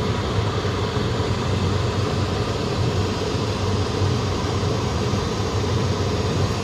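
Steady rumble and rush of a moving Fadak passenger train, heard from inside the carriage.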